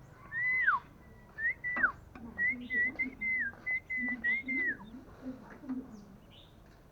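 A series of clear whistled notes held at about one pitch, the first two ending in a quick downward slide, then a run of short wavering notes, lasting about four and a half seconds.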